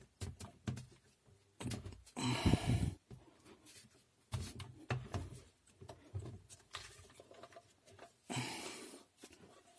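Hand-handling of a barrel-type P30-11 rotary hammer being taken apart: scattered clicks and knocks of its plastic and metal housing parts, with two short rubbing or scraping sounds, about two seconds in and near the end.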